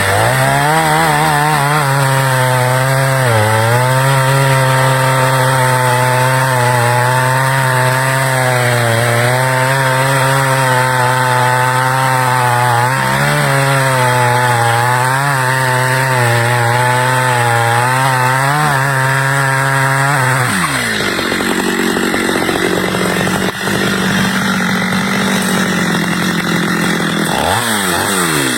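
Stihl two-stroke chainsaw running at high revs under load while cutting wood, its pitch wavering and dipping briefly twice. About two-thirds of the way through the revs drop sharply to a lower, rougher running note, then rise again in a short rev near the end.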